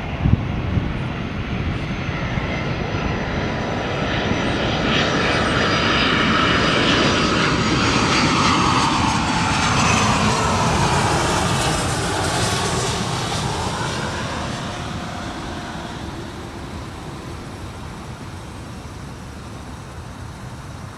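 Airbus A330 jet airliner passing low overhead on final approach to land. The engine roar swells to a peak midway, its pitch sliding down as the plane passes, then fades away. A couple of sharp knocks are heard right at the start.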